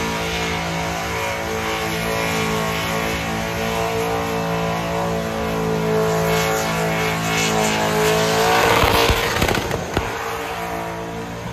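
Car engine held at steady high revs, then rising to its loudest with a rush of noise about eight seconds in before settling back to a steady note.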